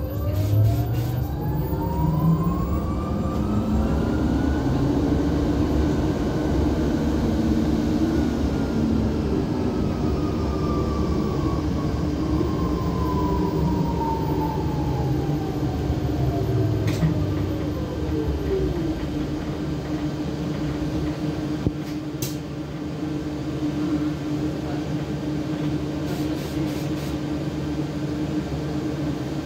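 Traction motor whine of a KAMAZ-6282 electric bus, heard from inside the cabin. The whine rises as the bus pulls away, then falls slowly over about fifteen seconds as the bus slows to a stop. A steady low hum and road rumble run underneath and carry on once the bus is standing.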